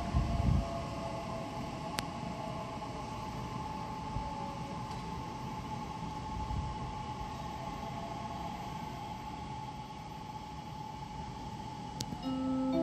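Electric trains in an underground station: a steady electric whine and hum, with tones gliding down at first as a train on the far track pulls away. A chime of several notes starts near the end.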